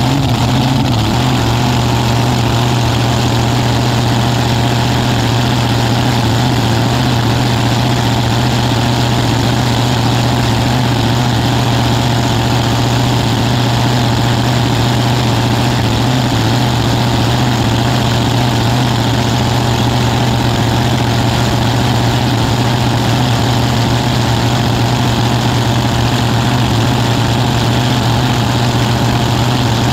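Nitro-burning V8 drag-racing engine idling steadily and loudly, heard from on board the car.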